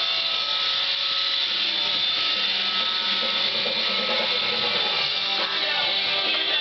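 iRobot Roomba 550 robot vacuum running, a steady hiss from its motor and brushes, with guitar music playing along.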